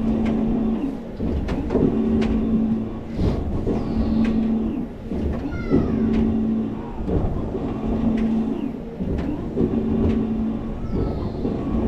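Electric drive of an SBF Visa Rocket-Roll flat ride running, a steady low hum that switches on and off about every two seconds over a rumble as the ride cycles.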